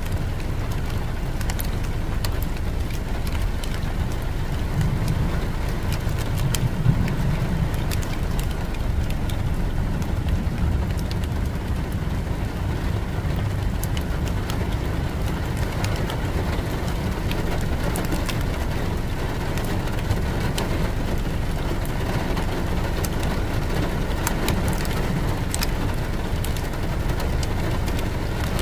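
A car being driven: the steady low rumble of engine and tyres on the road.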